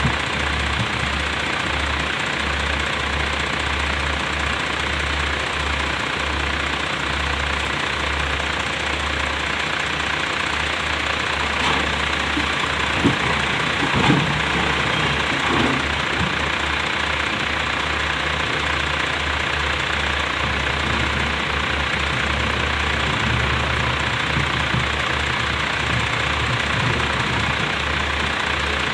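Heavy diesel engine of a Tata Hitachi ZX470 excavator running steadily under work, with a few sharp knocks about halfway through.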